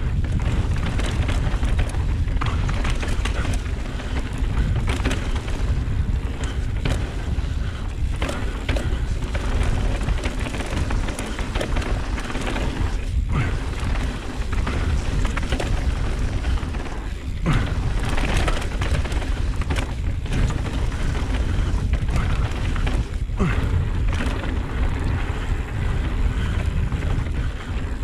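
Mountain bike riding down a rough trail: heavy wind rumble on the microphone, with tyres rolling and the bike rattling and knocking over bumps throughout.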